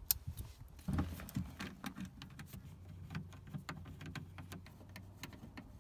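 Small irregular clicks and light rattles of a car door speaker being handled, set into its opening in the door's inner panel and screwed in with a hand screwdriver, over a faint low steady hum.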